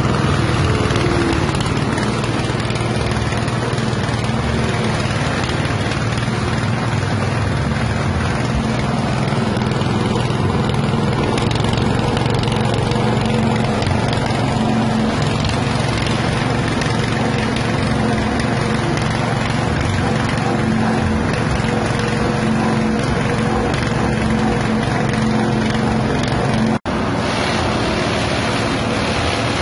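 Banana stem and frond chopper driven by a small petrol engine, running steadily while it shreds banana fronds into fine green chaff. The sound drops out for an instant near the end.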